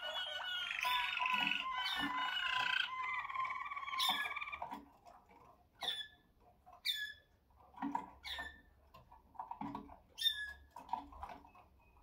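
Malinois (Waterslager) song canaries singing: a continuous rolling, trilled song for the first four and a half seconds or so, then only scattered short chirps that fall in pitch.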